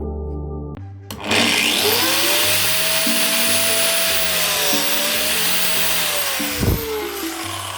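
Electric drill running for about six seconds, starting a second in and stopping near the end, its motor pitch wavering under load as it bores dowel holes in wood. Background music plays underneath.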